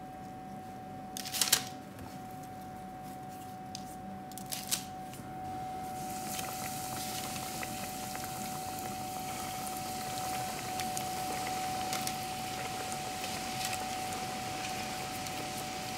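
Breaded pork-and-cheese cutlets deep-frying in hot oil in a stainless pot: a steady crackling sizzle that sets in about six seconds in and grows a little louder as more cutlets go in. Before it come two short crunches of hands pressing panko breadcrumbs onto a cutlet.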